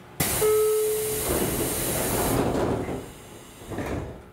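JR Kyushu 811 series train's side doors closing: a sudden loud rush of air hiss with a short steady warning tone near the start, the hiss dying away, then a brief final burst as the doors shut.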